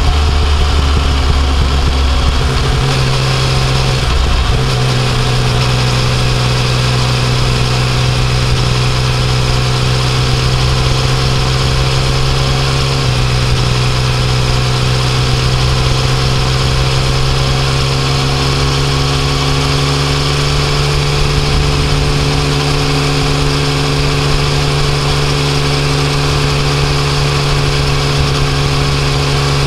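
Yamaha Tracer 900's 847 cc inline three-cylinder engine pulling under way on the road. Its note jumps up about three seconds in, climbs slowly, drops in a small step about halfway through, then rises again and holds steady, with wind rush on the microphone.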